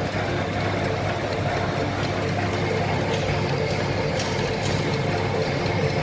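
Electric drill machine running steadily with an even motor hum.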